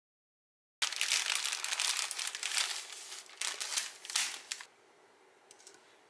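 Thin plastic food packaging crinkling as it is handled, starting abruptly about a second in and stopping near five seconds in, followed by a few faint clicks.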